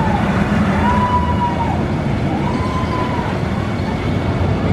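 Zamperla motorbike coaster train running along its steel track with a steady rumble. A high tone rises and falls three times, about a second and a half apart, like a siren.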